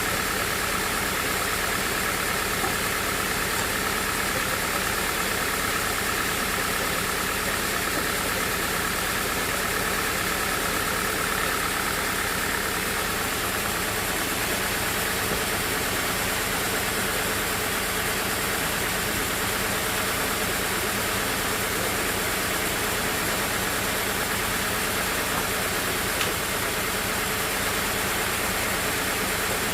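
A sawmill running steadily, a constant engine-like drone with no breaks, its higher whine easing slightly about halfway through.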